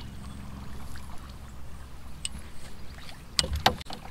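Boat motor running with a low steady hum, with a few sharp knocks about three and a half seconds in.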